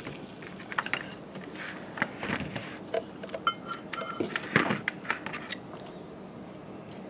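Small clicks, taps and rustles of plastic parts and servo wires being handled on a hexacopter frame, with a brief squeak a little past halfway.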